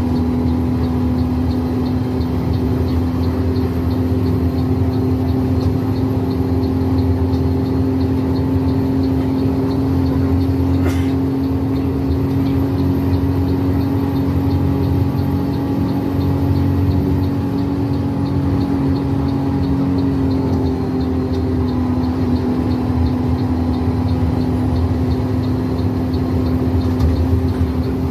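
Bus engine running steadily at cruising speed, heard from inside the bus. Over it the turn-signal indicator ticks evenly throughout.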